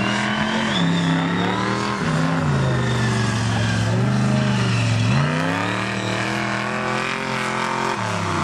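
Mega mud truck's engine revving hard as it drives the dirt course. The pitch surges up and drops back several times, holds high for a few seconds, then falls off near the end.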